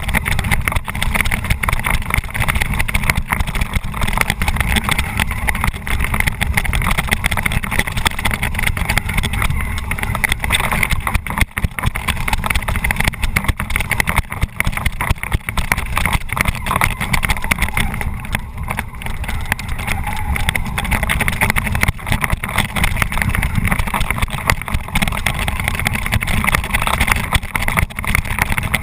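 Tamiya Bullhead electric RC monster truck heard from its onboard camera: a steady whine from its motors and gearboxes, with constant rumble and small knocks as the chassis bounces over grass and gravel. It is running on nearly flat batteries.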